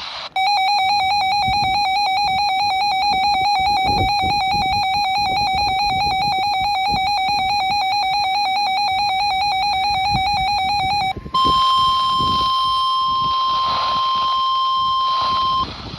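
A weather radio's alert alarm: a fast-warbling electronic tone for about eleven seconds, then, after a brief break, the steady single-pitch NOAA Weather Radio warning alarm tone for about four seconds. Together they signal an incoming severe thunderstorm warning broadcast.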